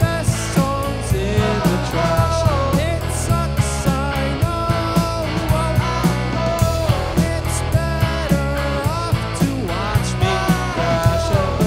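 A rock band playing live: drums, electric bass and two electric guitars, with sung vocals over a steady beat.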